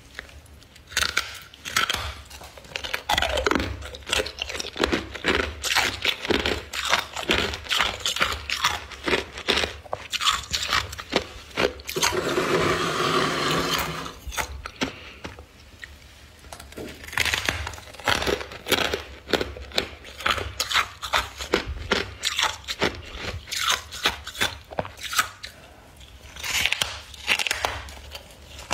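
Close-up crunching of ice and frost, with many sharp crunches in quick, irregular succession, as in biting and chewing frosted ice chunks. About halfway through there is one steadier, longer scraping stretch.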